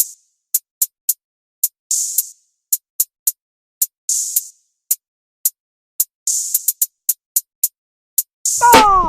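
Drum-machine beat stripped down to its hi-hats: short closed hi-hat ticks in a syncopated pattern with a longer open hi-hat hit about every two seconds, and no bass. Near the end a falling, sliding pitched sound and the low bass come back in.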